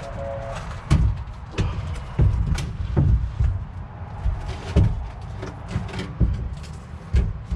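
Irregular heavy knocks and thuds, about seven of them, spaced roughly a second apart, typical of steel parts being knocked or handled during frame work under the bus.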